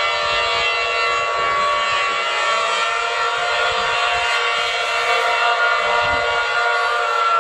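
Civil defense siren sounding: a loud, sustained wail of several pitches at once, some of them bending slowly up and down.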